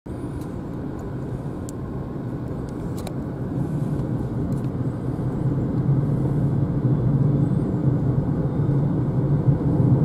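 Tyre and road rumble heard inside a Renault Zoe electric car as it gathers speed on a country road, a steady low rumble growing louder as the speed rises. A few faint ticks come in the first few seconds.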